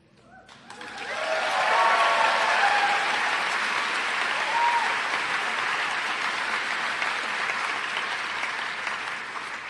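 Audience applauding: the clapping builds quickly about a second in, holds steady, and dies away near the end.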